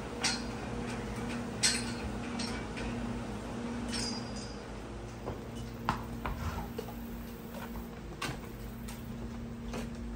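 Morgan gelding's hooves knocking and clinking on the barn floor at a walk, in irregular single strikes, over a steady low hum.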